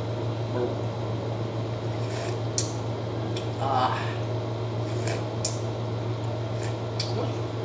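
Several short, sharp slurps as fish tinola broth is sipped from a metal spoon, over a steady low hum.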